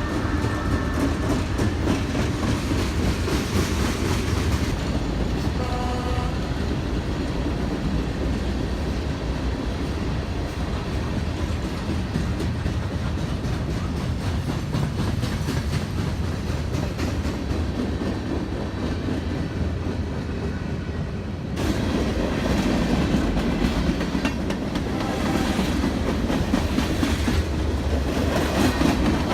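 A train rolling past on the rails, its wheels clattering steadily over the track. There is a brief faint tone about six seconds in, and the sound turns abruptly louder and brighter about 21 seconds in.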